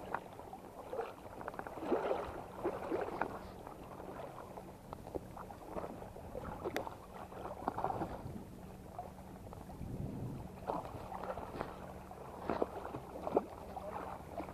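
Shallow sea water splashing and sloshing in irregular spells as a hooked fish thrashes at the surface while it is reeled in on a light spinning rod.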